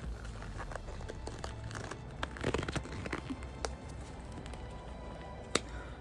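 Black disposable gloves being pulled on over the hands, crinkling and crackling in bursts, with one sharp snap about five and a half seconds in. Soft background music underneath.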